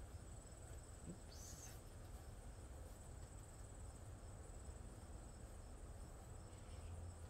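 Faint, steady, high-pitched insect trilling with a slight pulse, over a low background rumble. A short falling sound comes about a second and a half in.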